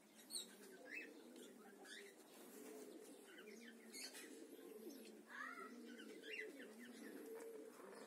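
Pigeons cooing faintly and continuously, with short high chirps and whistles from other birds now and then.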